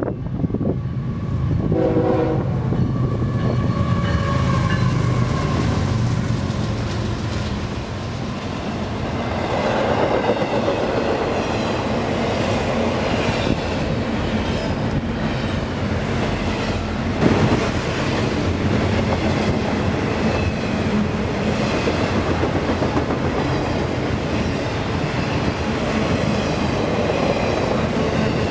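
Intermodal freight train passing at speed. The diesel locomotive's horn sounds briefly about two seconds in, followed by the steady rumble and wheel clatter of double-stack container and trailer cars rolling by, with one sharp clank past the middle.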